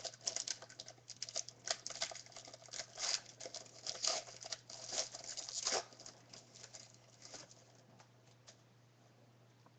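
Panini basketball trading cards and their packaging being handled: a dense run of rustling, crinkling and clicking for about six seconds, then only a few faint ticks.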